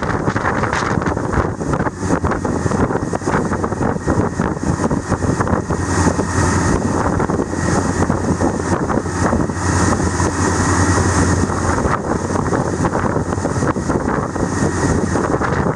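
Motorboat under way at speed: a steady engine drone over the rushing, churning wash of its wake, with wind buffeting the microphone. The low engine hum comes up more strongly for a few seconds in the middle.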